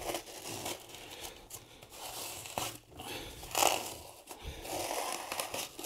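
Blue wrap being torn and pulled off the outside of a PVC drainpipe by hand: irregular tearing and rustling, with a few louder rips near the middle and the end.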